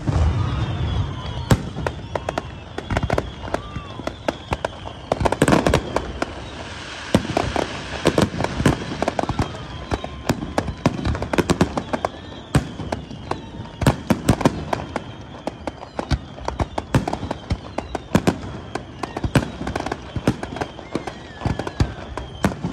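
Fireworks display: an irregular run of sharp bangs and crackles, some much louder than others.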